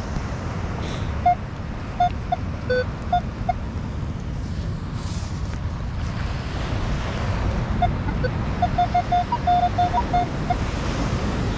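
Metal detector giving short beeps, mostly on one mid tone with a few higher and lower ones, over a steady rush of surf and wind on the microphone. There are a few beeps between two and four seconds in, then a quick run about nine to ten seconds in: the tones that signal buried metal passing under the search coil.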